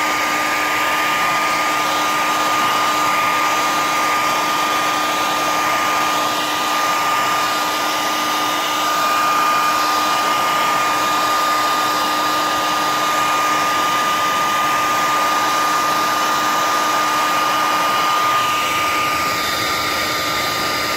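Hair dryer blowing steadily, a rushing air noise with a constant high whine, aimed at a vinyl sticker to heat and soften its adhesive for peeling.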